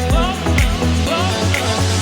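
Background pop/R&B music with a steady beat, bass and a gliding melody line.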